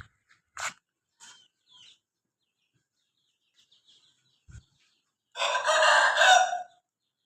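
A rooster crows once, a harsh call lasting about a second and a half near the end. Before it come a few short, faint chirps and clicks.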